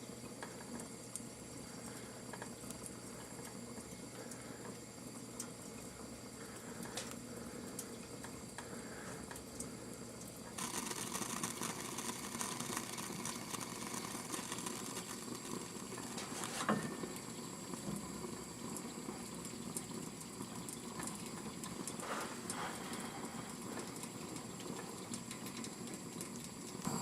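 Water boiling and sputtering inside a copper supply pipe as it is heated for soldering: water left in the line, which keeps the joint from reaching solder temperature. About ten seconds in, a steady hiss joins it, with a single knock a few seconds later.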